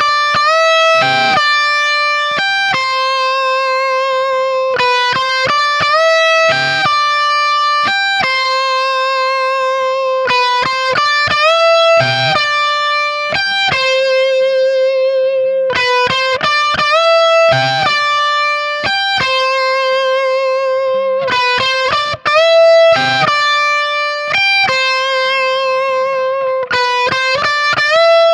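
Amplified electric guitars on their high-output bridge pickups, each playing the same short lead phrase of held notes, string bends and a strummed chord. The phrase repeats about every five and a half seconds, first on a Warmoth-parts Meadowhawk, then on a Les Paul, and near the end on a second Warmoth-parts guitar.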